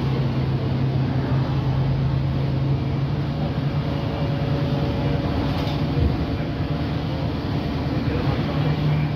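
Interior of an Alexander Dennis Enviro 200MMC single-deck bus on the move: a steady engine drone under road and tyre noise. The engine note fades about three seconds in and returns near the end, with a low bump about six seconds in.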